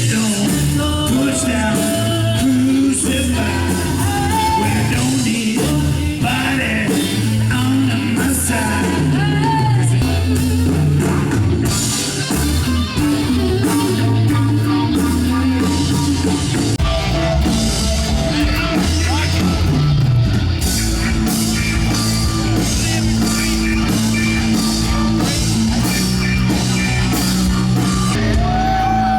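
A rock song with a lead vocal over guitar, bass and drums, played loud at a live concert and recorded on a camcorder.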